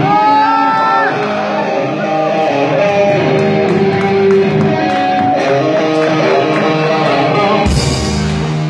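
Live band music led by electric guitar, playing sustained and bending melodic notes over chords. Near the end the full band comes in with a loud crash of drums and cymbals.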